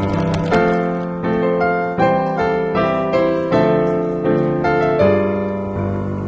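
Background piano music: single struck notes and chords at a gentle, even pace, each note ringing and fading.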